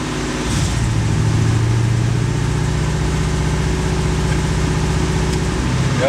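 1991 Corvette ZR1's LT5 V8 engine running; about half a second in its note turns deeper and louder as the secondary injector system is switched on, and it changes back shortly before the end. In secondary mode the engine runs poorly: a misfire from shorted Multec secondary injectors.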